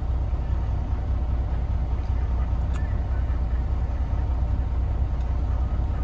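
Semi truck's diesel engine idling, a steady low rumble heard inside the cab, with a few faint clicks over it.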